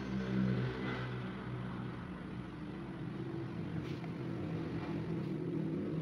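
A steady low motor hum, with two faint clicks in the second half.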